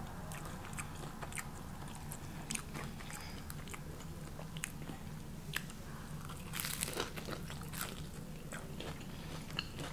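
Biting into a crisp fried avocado egg roll, with a crunch of the wrapper about six and a half seconds in. Light scattered clicks come before it as the roll is handled and dipped in sauce.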